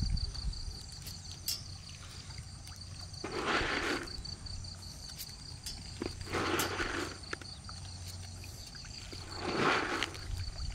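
Insects chirring steadily, with a low hum beneath and a louder rushing sound of unclear source about every three seconds.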